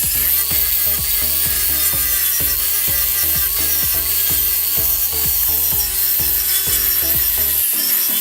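Background music with a steady beat of about four low thumps a second over held tones; the bass drops out briefly near the end.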